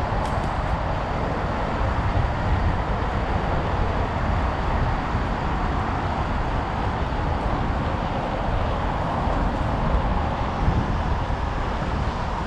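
Steady city traffic noise with a deep low rumble throughout, heard while riding a bicycle along a busy road.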